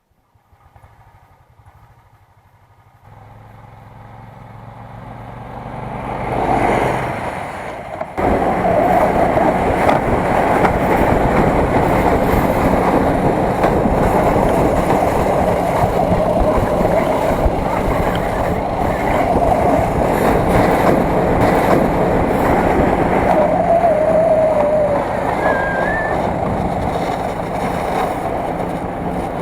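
Snowmobile engine running while riding. The sound fades in from near silence over the first few seconds, then becomes a loud, steady engine drone from about eight seconds in.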